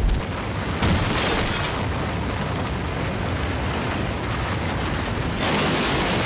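Concrete high-rise tower block coming down in a controlled explosive demolition. There is a sharp bang at the start and another about a second in, then a long, deep rumble of collapsing concrete that swells again near the end.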